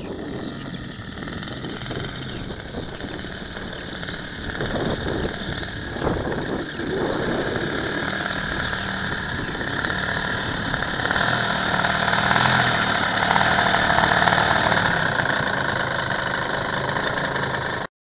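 A DLE 170 twin-cylinder two-stroke gasoline engine on a large-scale model aircraft, running at low taxi throttle as the plane rolls across grass. It grows louder partway through as the plane nears the microphone.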